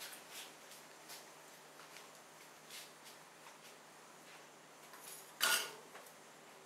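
Light clicks and soft scrapes of metal tongs picking up thin frozen ice cream sheets. About five seconds in, a sharp metallic clatter with a brief ring as the tongs are set down on the steel cold plate.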